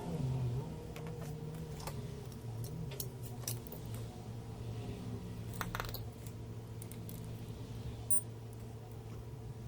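Small metallic clicks and taps of soldering tools against the console board, a few scattered through, over a steady low electrical hum from the bench equipment.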